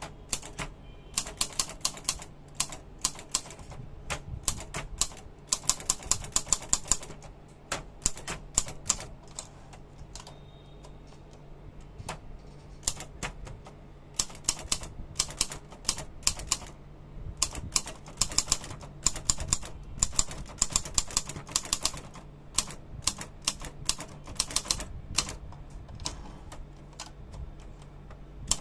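Kovac typewriter being typed on: runs of rapid key strikes broken by short pauses, over a steady low hum.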